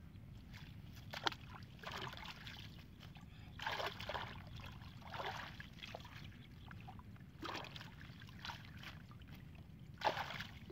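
Muddy water sloshing and splashing in a string of short, irregular bursts as hands pull netting and water plants out of a flooded hole.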